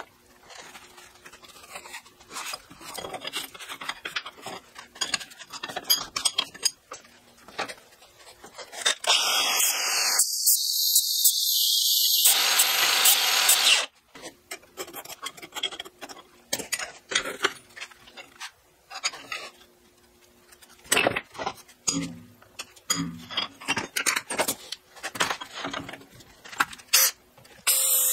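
Scrapes and metallic clinks of a steel bar being handled in a bench vise. About nine seconds in, an angle grinder grinds the steel for about five seconds and then stops. More clanks and taps follow, and near the end a cordless drill starts boring into the steel.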